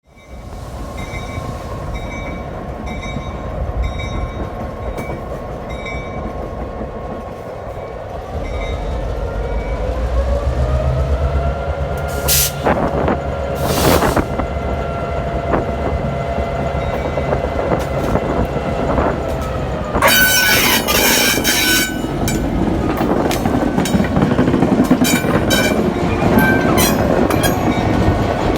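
A grade-crossing bell dings steadily at first, then an EMD GP9 diesel locomotive's two-stroke V16 engine comes up under load and rises in pitch as the train approaches. A horn blast comes about two-thirds of the way in, and the passing cars clatter over the rail joints near the end.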